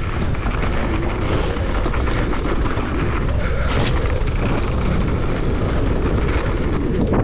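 Mountain bike descending a dirt trail at speed: steady wind rush on the microphone over the noise of tyres on dirt and constant small rattles over bumps. A brief, higher hiss cuts through about halfway.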